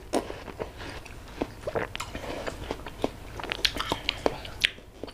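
Biting into a slice of watermelon and chewing it: a run of irregular small crunches and clicks from the fruit in the mouth.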